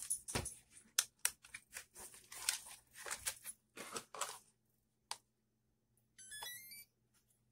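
Plastic clicks and rattles as the Heng Long Japan Type 90 RC tank is handled and switched on. About six seconds in comes a quick run of stepping electronic beeps as the RC set powers up.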